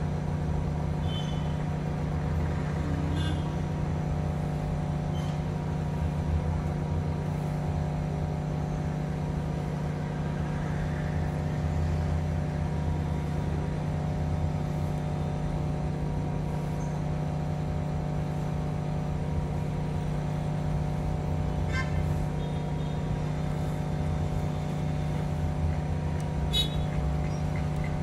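Hot air rework station blowing steadily through its nozzle with a constant hum, heating a tablet CPU to melt its solder for removal. A few brief clicks sound over it.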